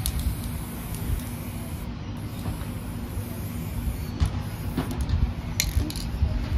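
Aerosol spray-paint can hissing in short sprays, over a steady low rumble, with a few light clicks in the second half.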